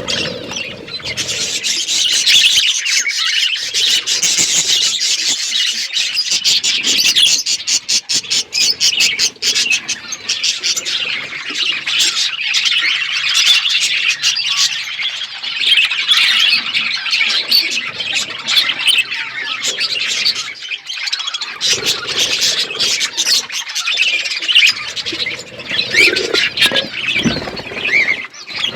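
A flock of budgerigars chattering and chirping, a dense, unbroken mix of many short high calls and squawks.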